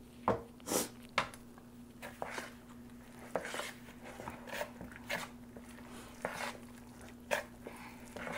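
Metal spoon stirring a thick flour-and-milk conch fritter batter in a plastic mixing bowl, with irregular short scrapes and knocks against the bowl, over a steady low hum.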